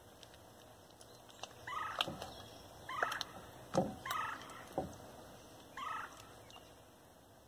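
Homemade slime squelching as it is kneaded and squeezed by hand: a few short, squeaky gurgling notes about a second apart, with a couple of wet slaps.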